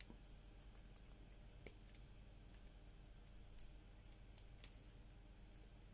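Near silence with faint, scattered light clicks from small parts and hand tools being handled during work on a headlight switch.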